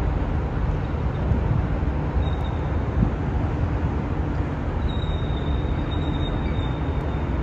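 Steady city traffic rumble rising from the streets below a high-rise balcony, with a faint thin high whine briefly about two seconds in and again from about five seconds in.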